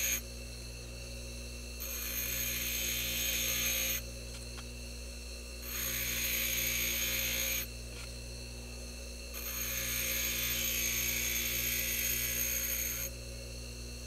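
Bench grinder running with a steady motor hum while a small screw is pressed against its stone wheel in three spells of grinding hiss, each two to four seconds long, taking down a welded-on blob of metal on the screw head.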